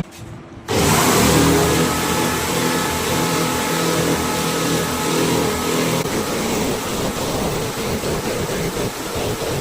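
A motor running loudly and steadily, starting about a second in.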